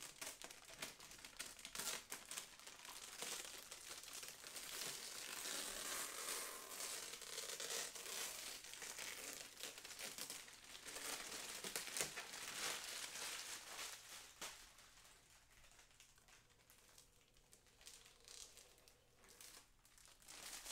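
Thin clear plastic bag crinkling and rustling as it is pulled off a model truck's body, busy for the first dozen or so seconds, then fainter and sparser.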